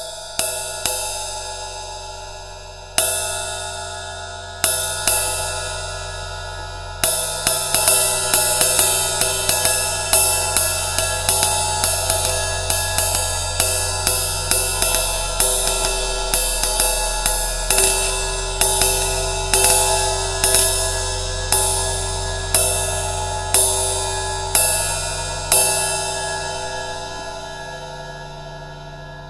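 Ride cymbal struck repeatedly: a few spaced hits, then a quick run of strokes several a second, slowing to about one a second. The last stroke rings on and fades away over the final few seconds.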